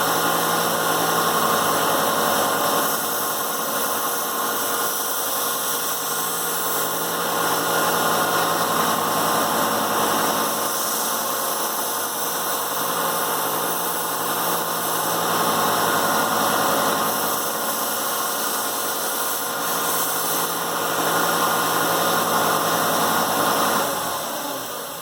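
A 1x30 belt sander running steadily with a 400-grit belt while a knife edge is passed lightly across it to knock off the burr. The level swells and eases every few seconds, and the sander winds down near the end.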